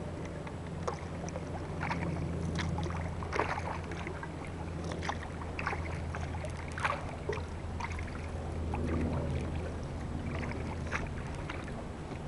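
Sea kayak paddle dipping into calm water, with irregular splashes and drips roughly once a second over a steady low hum.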